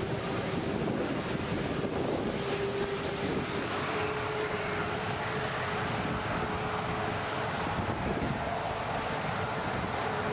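Jet engines of a KC-135 Stratotanker running as the tanker taxis: a steady rush with a whine that steps up slightly in pitch about four seconds in.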